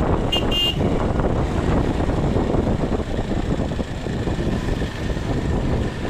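Wind buffeting a cheap earphone microphone on a moving motorcycle, a dense rumble throughout. About half a second in, a vehicle horn gives two short toots.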